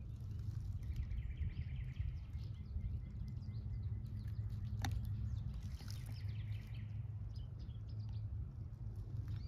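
Woodland ambience: a steady low rumble with birds chirping faintly in the background, and a single sharp click about five seconds in.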